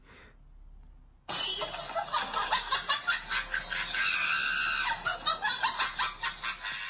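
A person laughing and shrieking, starting about a second in, in rapid uneven pulses with one longer high squeal midway.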